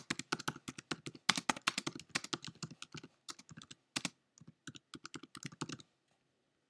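Typing on a computer keyboard: a fast, irregular run of key clicks with brief pauses, stopping about a second before the end.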